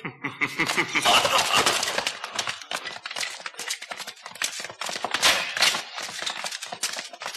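A dense, rapid, irregular clatter of many sharp knocks.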